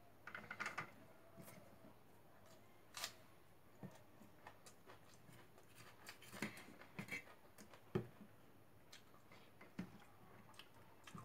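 Faint hand-eating sounds: chewing and mouth smacks from a mouthful of rice, with scattered small clicks as fingers mix rice and mashed potato against steel plates.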